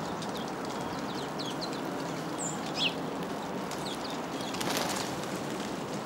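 House sparrows give a few short high chirps, and about three-quarters of the way through there is a brief flutter of wings as they fly off, over a steady background noise.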